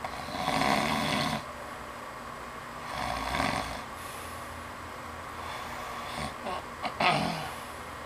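A man snoring in his sleep: two long snores about three seconds apart, then a choppier, broken snore near the end.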